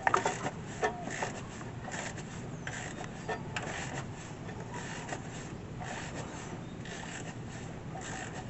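Hands working on jet ski parts: a few sharp knocks and clicks in the first second, then faint scraping and handling clicks over a steady background hiss.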